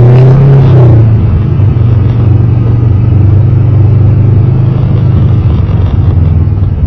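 Side-by-side UTV engine running at a crawl, a steady low drone. It is louder with a brief rise in the first second, then settles.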